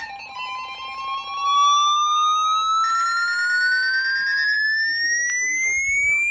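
Emergency alert broadcast tones: steady electronic alert tones with a fast, even pulsing for the first few seconds, under a tone that rises steadily in pitch throughout.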